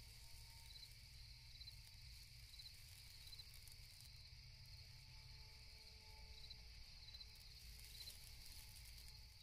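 Faint night insects, crickets, making a steady high trill with a short chirp repeating about once a second.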